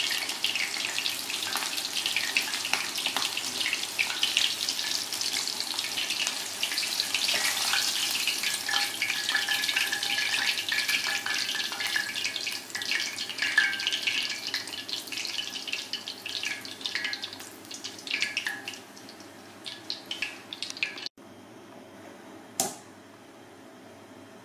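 Floured chicken pieces deep-frying in hot oil in a pan, a dense crackling sizzle that thins out and quietens over the later seconds as the pieces come out of the oil. Near the end it drops abruptly to a faint hiss, with a single tap.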